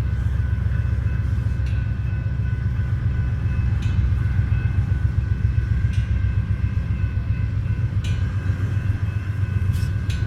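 Amtrak passenger train running with a steady low rumble and short clicks about every two seconds.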